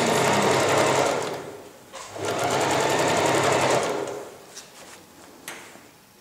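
Electric sewing machine stitching a zipper tape onto fabric: it runs in two spells of a second or two with a short pause between, then stops, followed by two light clicks.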